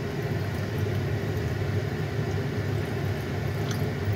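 Steady low mechanical rumble of background machinery, with a faint light tick near the end.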